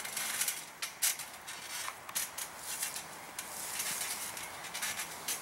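Steel coil springs of a backyard trampoline creaking and squeaking irregularly as two people shift and scramble on the mat.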